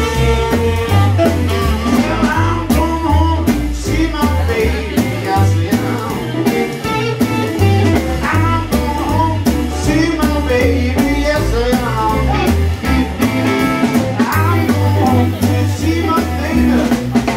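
A live swing combo playing: a man singing over electric guitar, a stepping bass line and drums with a steady beat of cymbal strokes.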